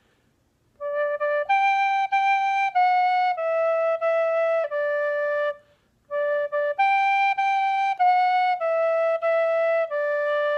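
Tin whistle playing a slow eight-note phrase, D, D, G, G, F-sharp, E, E, D, twice over, each note clean and separate, with a short break between the two phrases.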